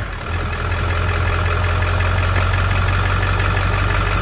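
Ford F250 Super Duty's 7.3-litre diesel V8 idling steadily just after firing up. It settles into a steady idle in the first moments, the no-start cured by a newly replaced starter.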